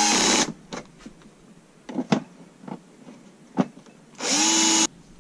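Cordless drill-driver on a low speed, low torque setting, driving the Torx T15 screws into a Kärcher K4 pressure washer's plastic casing in short bursts. One run stops just after the start; another spins up about four seconds in and stops after about half a second. A few sharp clicks fall between the two runs.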